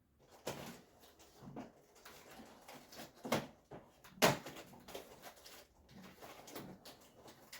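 Irregular knocks, clatters and rustles of the electric grill-and-hotpot's box and packing being handled, with the sharpest knock about four seconds in.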